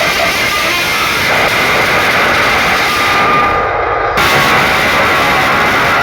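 Loud DJ sound-check mix played through a large DJ speaker system. The treble cuts out for about a second just past the middle before the full sound drops back in.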